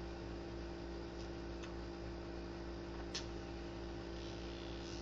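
Steady low electrical hum and hiss of room tone, with a few faint short ticks, the clearest about three seconds in.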